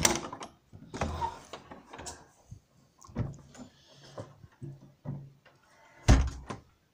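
Scattered knocks and bumps of handling in a workshop, with a door banging loudly about six seconds in.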